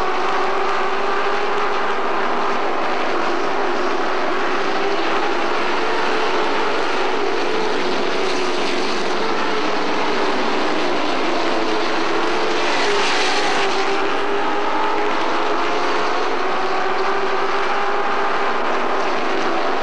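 A field of race trucks' V8 engines running at speed around a short asphalt oval, several engines at once, their pitches wavering up and down as they circle. A brief swell about two-thirds of the way through as the pack comes nearer.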